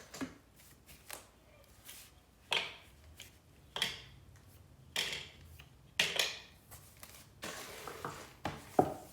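A package being opened by hand: a string of short, sharp crackles and snaps, about one every second, from packaging being cut, pulled and torn open.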